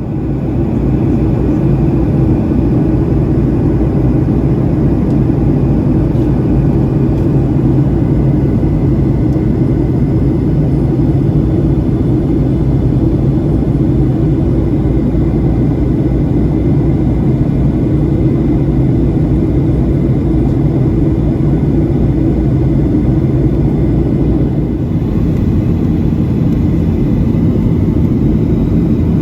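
Steady cabin noise inside a Boeing 737-700 in flight: an even, low rumble of its CFM56 jet engines and airflow past the fuselage, with a faint steady whine above it.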